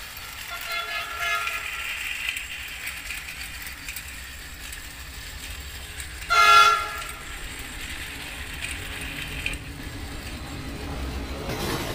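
Battery-powered toy train running on its plastic track, its electronic horn and whistle sound effect tooting in repeated bursts, loudest about six and a half seconds in, over the faint whir of the toy's motor.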